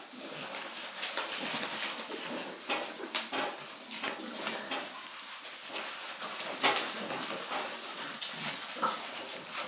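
Six-week-old Shar-Pei puppies playing on paper puppy pads: small puppy noises mixed with scattered short scratches and rustles of paws on the paper.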